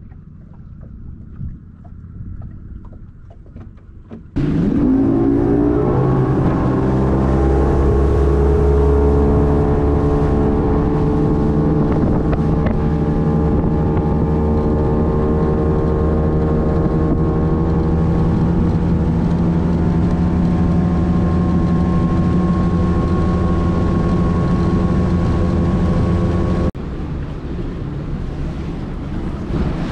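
Bass boat's outboard motor throttling up about four seconds in, its pitch rising over a few seconds, then running steadily at speed. Near the end the engine sound drops away suddenly, leaving a lower rushing noise.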